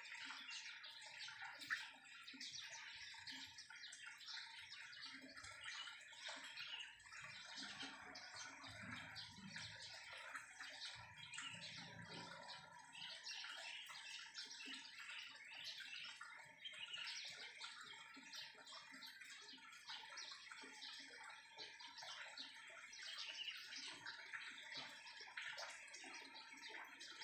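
Many small birds chirping and twittering faintly and continuously, a dense scatter of short high calls with no single song standing out.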